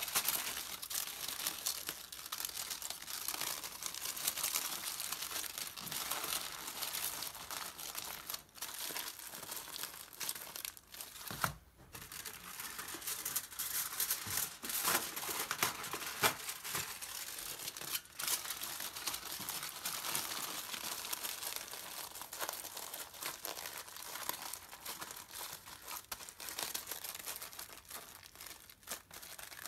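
Aluminium foil crinkling and crumpling as it is folded and pressed around a burger by hand, with a short pause and a soft knock a little before the middle.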